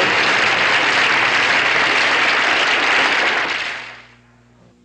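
Studio audience applauding, fading out about four seconds in.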